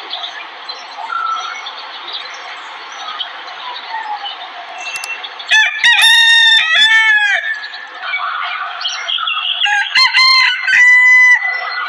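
Desi rooster crowing twice, each a loud drawn-out cock-a-doodle-doo: one about halfway through and another near the end. Before the first crow there is a steady hiss of background noise with faint bird chirps.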